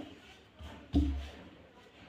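A sharp wooden knock with a dull thud about a second in, from a wooden rolling pin and board (chakla-belan) while small rounds of dough are rolled out, with faint rolling and scraping between.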